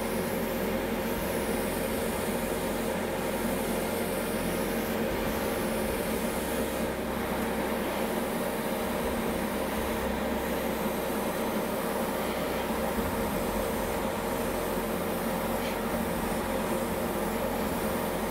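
Hobby spray booth extractor fan running steadily with a constant hum, under the hiss of an airbrush spraying matte varnish.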